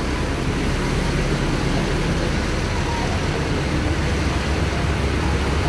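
Steady rumble of road traffic around a bus station, with no single event standing out.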